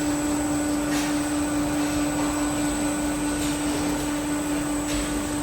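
Laboratory blown-film extruder running: a steady machine hum with a strong low tone and a thin high whine over a constant rushing noise.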